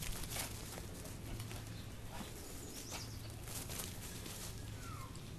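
Light, irregular scuffs and rustles of a Staffordshire bull terrier running and turning on grass after a flirt-pole lure, over a steady low hum. A bird chirps once briefly near the end.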